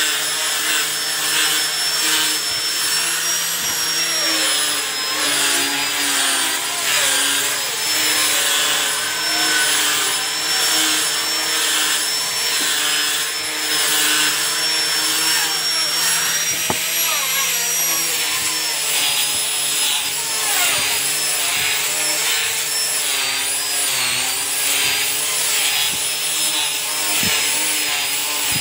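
Maktec hand grinder fitted with 180-grit sandpaper, running steadily and sanding teak wood. Its high motor whine wavers slightly in pitch throughout.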